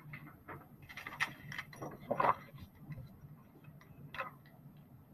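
Handling noise of a paper worksheet being picked up by hand: irregular light clicks and taps, with short rustles about a second in and again just after two seconds, over a faint steady low hum.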